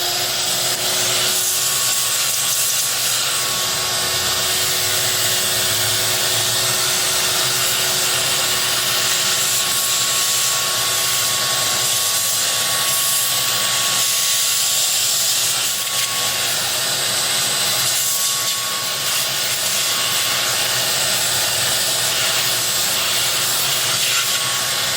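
Vacuum cleaner running steadily, a loud even rushing noise with a constant hum, sucking loose corrosion off car battery terminals.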